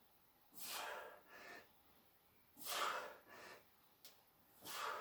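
A man breathing hard through a set of sit-ups: three paired breaths about two seconds apart, each a stronger breath followed by a softer one.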